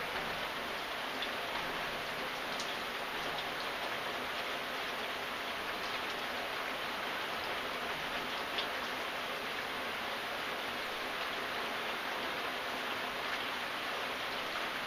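Steady rain falling, an even hiss with scattered individual drops ticking on a surface.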